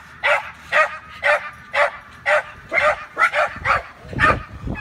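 Patterdale terrier barking in short, evenly spaced yaps, about two a second. A low rumbling noise comes in near the end.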